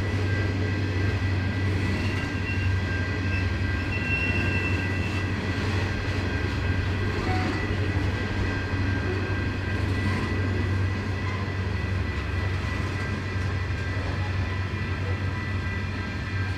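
Diesel train working hard up a steep 1-in-50 grade. Its engines make a steady, loud low drone, with thin high-pitched whines held over it.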